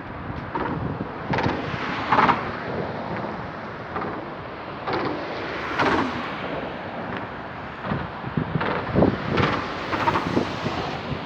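Wind buffeting the microphone, with irregular loud gusts and thumps.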